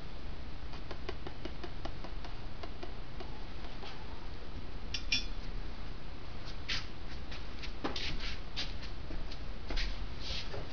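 Light metallic clicks and clinks of small steel parts being handled, sparse at first and more frequent in the second half.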